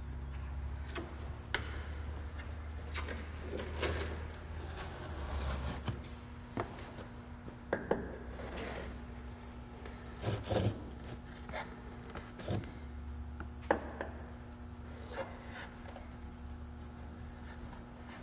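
Sharpened wood chisel scraping and cutting old windshield urethane off the metal pinch weld of the windshield opening, in irregular strokes with scattered clicks, over a low steady hum.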